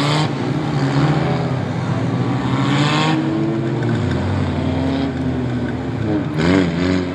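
Engines of several short-track race cars running together as the field circles the track, their pitches rising and falling as they pass. A brief wavering rev about six and a half seconds in.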